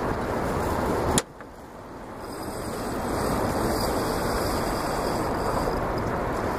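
Wind buffeting the microphone, a steady rumbling rush, broken by one sharp knock about a second in, after which the rush dips briefly and builds again.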